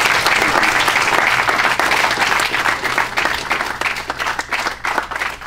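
A small group applauding, many hands clapping at once. The clapping thins out to a few separate claps and fades near the end.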